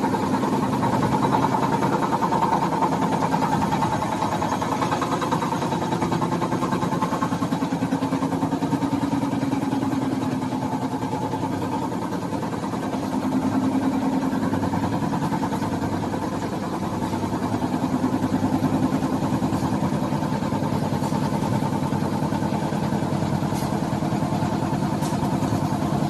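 Baby diaper production machine running at speed: a steady mechanical drone with a rapid, even clatter, its level swelling and easing slightly.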